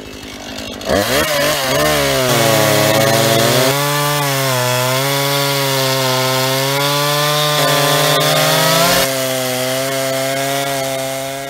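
Two-stroke gas chainsaw revved up to full throttle about a second in and cutting through a fallen dead tree, its engine note dipping and wavering under the load of the cut, then dying away near the end.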